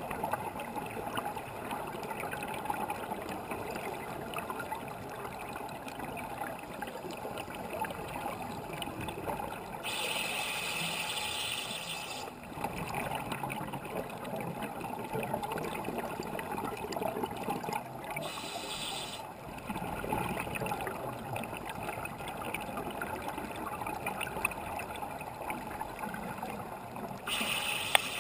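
Underwater ambience heard through a GoPro's waterproof housing, a steady muffled rumble and hiss, broken three times by a scuba diver's exhaled bubbles rushing from a regulator, each burst lasting one to two seconds, roughly eight seconds apart.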